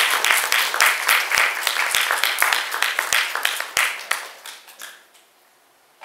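Audience applauding, many overlapping hand claps that thin out about four seconds in and stop a second later.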